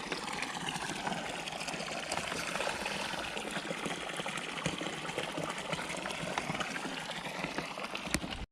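Water running and splashing steadily, cutting off abruptly near the end.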